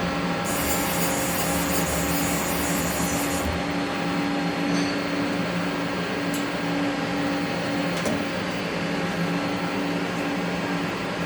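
A 1996 Haas CNC lathe, powered up, giving a steady machine hum with several constant tones. A high hiss runs from about half a second in to about three and a half seconds, and a couple of faint clicks come later.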